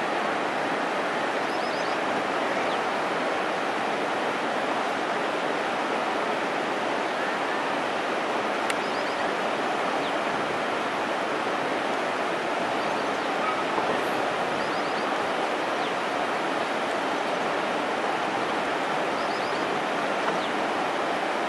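The Ganges flowing steadily past shallow boulders: a constant, even rush of water. Faint short high chirps come through a few times.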